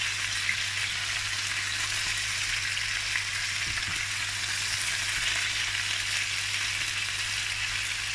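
Cubes of Iberian pork loin sizzling steadily in a shallow layer of hot olive oil, seared over high heat and turned now and then with a spatula.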